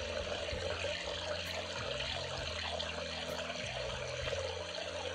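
A stream of water pouring into a partly filled collapsible plastic bucket, with steady running and splashing into the water already in it.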